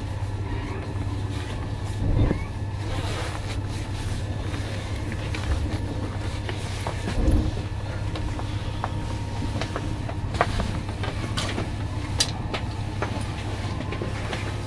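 Electric commuter train (Alstom Coradia Nordic multiple unit) running, heard from inside the carriage: a steady low hum with faint steady motor tones above it, broken by a few short knocks and clicks.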